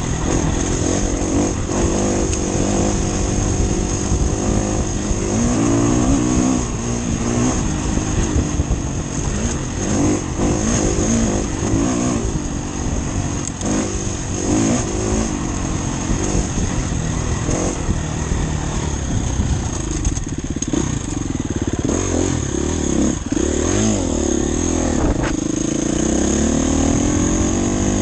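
Enduro motorcycle engine being ridden off-road, its pitch rising and falling over and over as the throttle is opened and shut.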